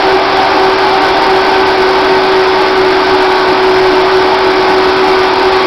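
Vita-Mix blender running, a loud steady whir with a constant motor whine, as it blends brownie pieces and coffee into a smooth sauce.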